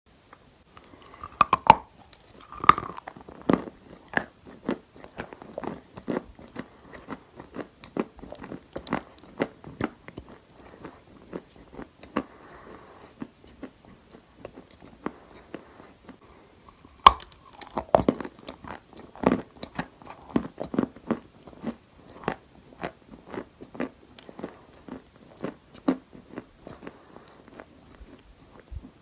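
A lump of dry grey clay being bitten and chewed close to the microphone: loud crunching bites about a second and a half and three seconds in and again about seventeen seconds in, with many smaller crunches between them as it is chewed.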